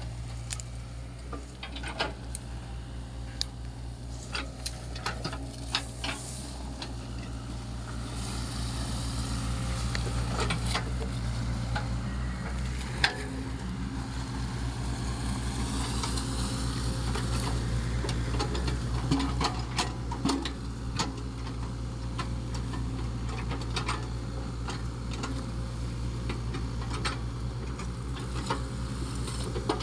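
Sany SY55C mini excavator's diesel engine running steadily under work, with scattered knocks and clicks over it. The engine grows louder from about a quarter of the way in and stays up.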